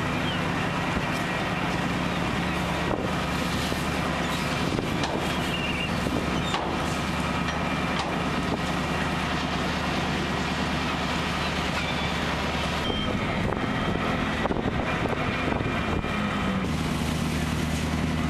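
Steady mechanical drone of a fishing trawler's engine and deck machinery, a low hum under a broad noise. The hum shifts pitch about 13 seconds in and again near the end.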